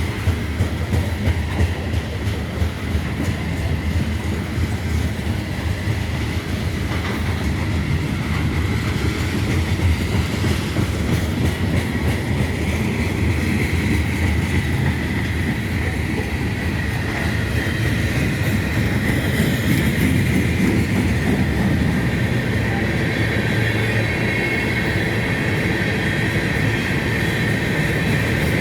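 Freight train rolling past steadily, its car wheels rumbling and clacking on the rails, with a thin steady high whine from the wheels that grows louder in the second half.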